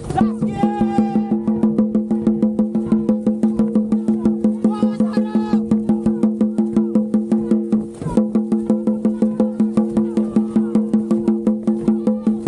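Music: a fast, steady clacking beat like a wood block over sustained held tones, the beat pausing briefly about eight seconds in.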